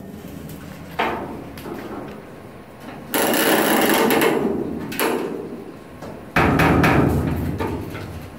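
Ratchet tie-down strap being worked: a knock about a second in, then two longer stretches of rasping and clicking as the webbing is pulled through and the ratchet is cranked tight.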